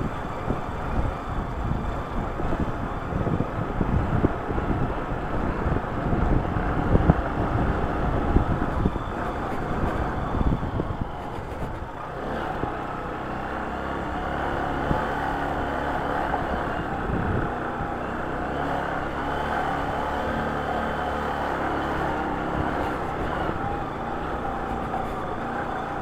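Small commuter motorcycle riding over a rough gravel road: engine running with rough, gusty rumble of wind and road for about the first half, then settling into a smoother, steady engine drone for the rest.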